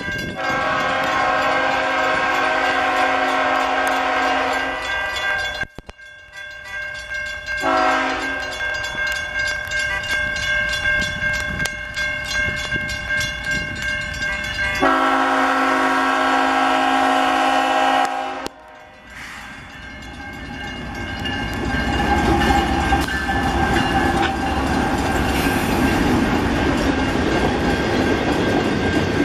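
Freight train's lead GE diesel locomotive sounding its air horn for a grade crossing: a long blast, a short one about eight seconds in, then another long one. From about twenty seconds the locomotives pass close by, their engines and wheels rumbling louder and louder.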